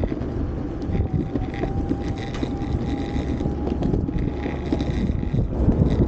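Backfire electric skateboard riding along asphalt: wind buffeting the microphone over a rough rumble of wheels on the road, with a steady high motor whine that sets in about half a second in and fades out near the end.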